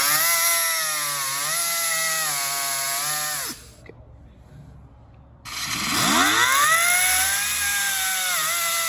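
Air cut-off tool's abrasive wheel cutting steel keyway stock to length: a high whine under a hiss of grinding, its pitch dipping as the wheel bites. It cuts off about three and a half seconds in. After a short quiet the tool spins up again with a rising whine and cuts again.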